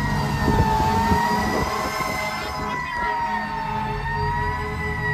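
Federal Q mechanical siren on a fire truck, heard from inside the cab, its scream slowly rising and falling in pitch. The truck's Detroit Diesel DD13 engine drones underneath.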